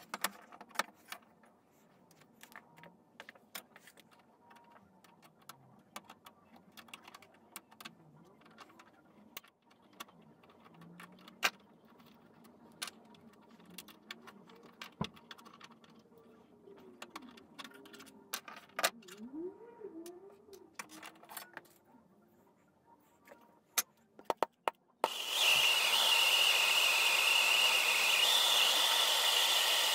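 Scattered light clicks and knocks of wood and metal as the old cracked wooden handle is pulled apart and off a billhook's rusty tang. Near the end a blowtorch starts up with a sudden loud, steady hiss, heating the bent tang to straighten it.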